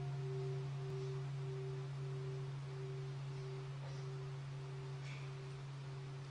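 Large bowl-shaped temple bell ringing out after a single strike of its wooden striker: a steady low hum with a wavering overtone that pulses about one and a half times a second, slowly fading, its highest tone dying away about a second in. It is the bell of mindfulness, sounded to call listeners back to their breathing.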